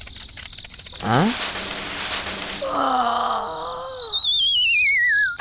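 A string of cartoon-style sound effects: fast clicking, a quick rising swoop into a burst of hiss, a wavering groan-like voice, then a long warbling whistle that slides down in pitch.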